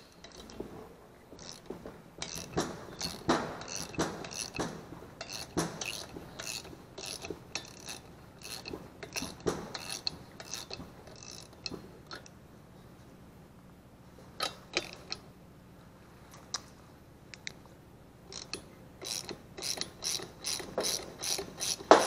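Hand socket ratchet clicking in runs, with pauses, while backing off the rocker-arm fasteners on a small overhead-valve engine's cylinder head.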